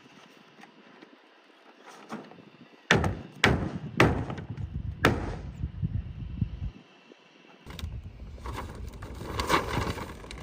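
Sharp knocks and thuds, four loud ones spaced about half a second to a second apart, then rumbling handling noise with scattered knocks near the end.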